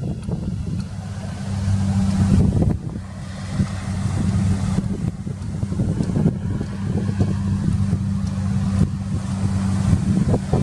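A fishing boat's engine running steadily with a low hum, with gusts of wind on the microphone.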